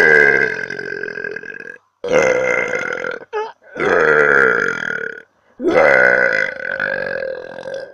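A woman burping: four long, drawn-out belches of one to two seconds each, with short pauses between them, and a brief little burp after the second.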